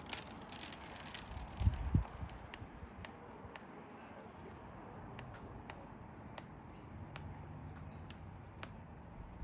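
Scattered sharp clicks and taps of cockatoos and king parrots cracking seed and pecking at the feed, with a low thump about two seconds in.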